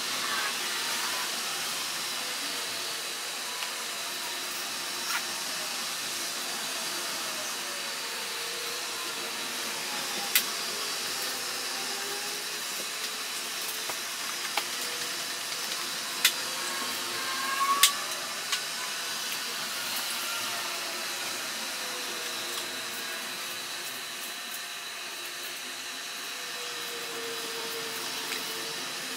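Steady rush of highway traffic, with the tones of passing vehicles sliding up and down in pitch, and a few sharp clicks.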